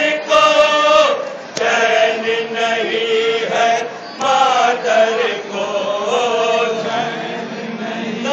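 A group of men chanting a nauha, a Shia lament, in long sung lines that rise and fall, with a few sharp slaps in the first two seconds.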